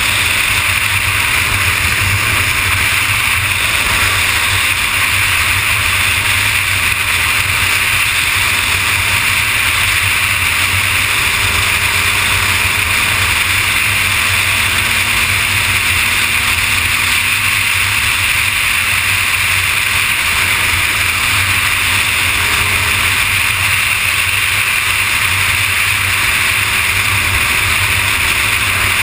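Kawasaki ZX-6R motorcycle at freeway speed: a steady rush of wind and road noise, with the inline-four engine running under it.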